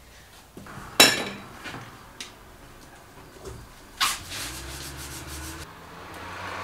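A hand scraper scraping dried spray paint off a bus window's glass, slicked with vegetable oil, in a quick run of short scratchy strokes about four seconds in. Before that, a single sharp knock about a second in is the loudest sound.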